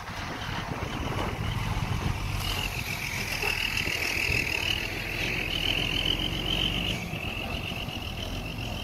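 Heavy machine's engine running steadily, with a high whine that comes in about two and a half seconds in and fades near the end.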